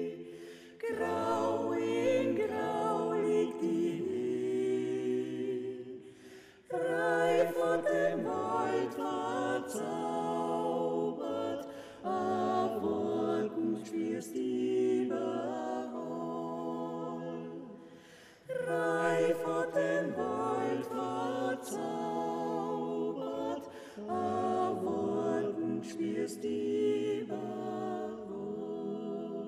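Vocal ensemble singing a cappella in several-part harmony, in sung phrases of about six seconds separated by short breaks.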